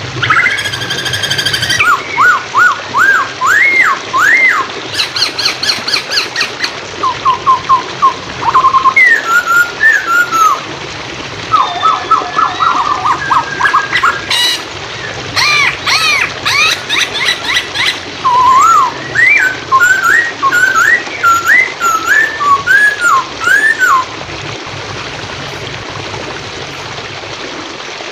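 Poksay hongkong (Chinese hwamei) singing loudly in a tutor recording: phrases of whistled notes that swoop up and down, mixed with quick chattering trills, over the steady rush of flowing water. The birdsong stops about four seconds before the end, leaving only the water.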